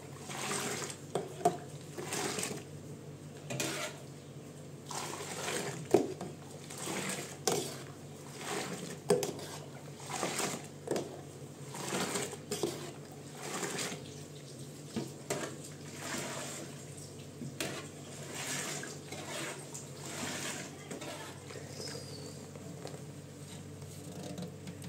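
Milk poured repeatedly from a small metal bowl into an aluminium pot, splashing with clinks and scrapes of metal on metal, for yogurt making.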